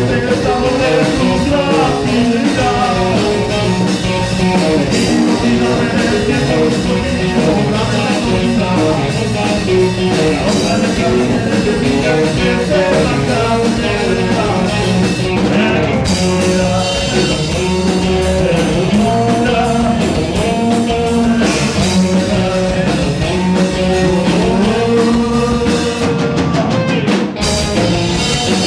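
Rock band playing live: electric guitars, bass and drums, with singing.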